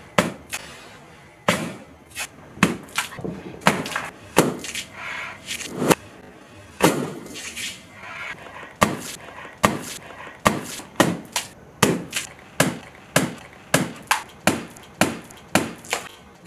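A quick, irregular string of sharp pops and smacks: hanging water balloons burst one after another by kicks and punches.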